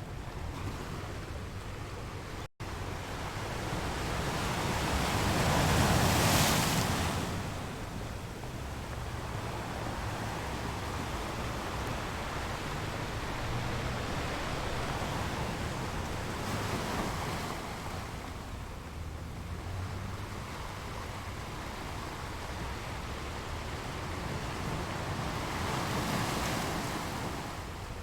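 Sea surf: waves breaking and washing in as a continuous rushing noise. It swells to its loudest about six seconds in, then rises again more softly twice later. The sound cuts out for an instant near the start.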